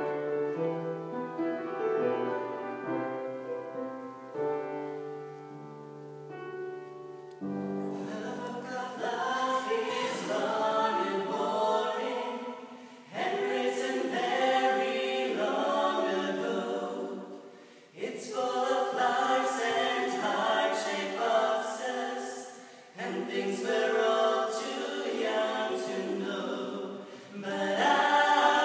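A keyboard instrument plays alone for the first several seconds; then a man and a woman start singing a duet over it, in phrases with short breaths between them.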